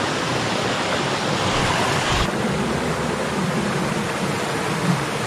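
Creek water rushing over a small cascade, a steady hiss; about two seconds in it changes abruptly to a softer, lower-pitched flow.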